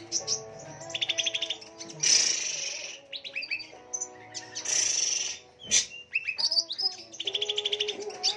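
Birds singing: fast rattling trills and short whistled notes, broken twice by a harsh, scratchy chatter.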